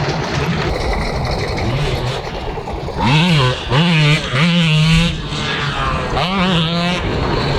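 Two-stroke motocross dirt bike engine revving hard up and down through the gears, the pitch rising and dropping in several quick sweeps, loudest in the middle.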